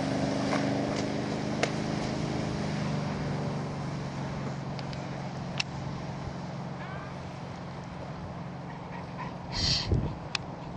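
Malibu Response XLI ski boat's inboard engine running steadily while towing a water skier, slowly fading as it moves away. Near the end there is one short, high-pitched call.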